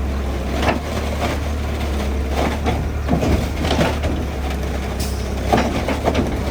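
Diesel engine of heavy earth-moving machinery running steadily with a low drone, with irregular clanks and crunches of metal and soil over it.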